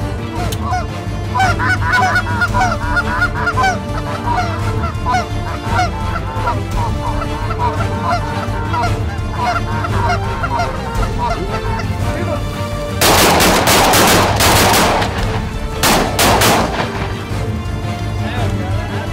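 Canada geese honking, many overlapping calls. About two-thirds through comes a volley of several overlapping shotgun blasts lasting about two seconds, then a second short volley a few seconds later.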